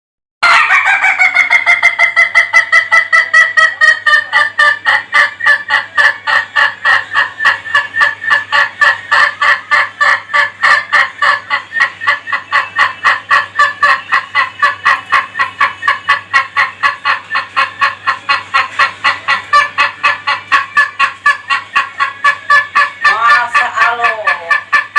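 Ayam Ketawa (Indonesian laughing chicken) rooster giving its long laughing crow: a rapid, even string of short cackling 'ha-ha' notes, about five a second, beginning about half a second in and kept up for over twenty seconds. Near the end a second, lower call overlaps it.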